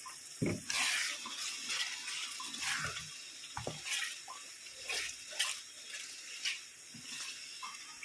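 Water from a kitchen tap splashing in uneven bursts, with a couple of low knocks.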